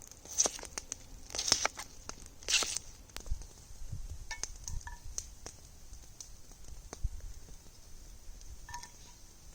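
Hash browns frying in a cast iron pan over a campfire: a steady sizzle with scattered sharp pops and crackles, a few louder ones in the first three seconds.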